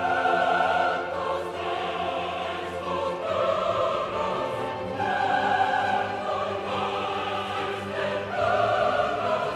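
Choral and orchestral classical music, with long held sung notes that change every second or so. The music grows louder right at the start.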